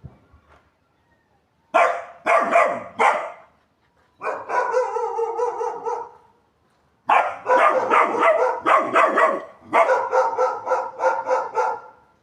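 German shepherd puppy, three months old, barking: three quick barks, then a longer drawn-out call, then a run of rapid barks lasting about five seconds.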